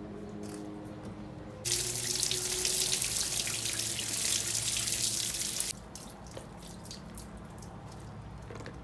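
Water tap running onto vegetables in a plastic colander, turned on about two seconds in and shut off about four seconds later, followed by drips and light clicks.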